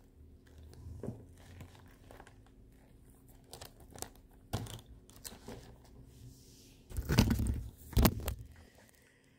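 Paper sketchbook and pencil being handled, with scattered soft rustles and taps. Then a hand grabs the recording phone: loud rubbing scrapes over the microphone about seven seconds in and a sharp knock a second later.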